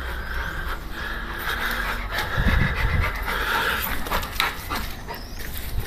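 Pit bull panting hard with its mouth open, in quick repeated breaths. A brief low rumble comes about two and a half seconds in.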